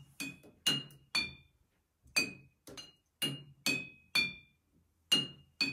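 Glass jars holding different amounts of water tapped with a wooden spoon, about ten clear clinks that each ring briefly at a different pitch and together make a simple tune, with a short pause partway through.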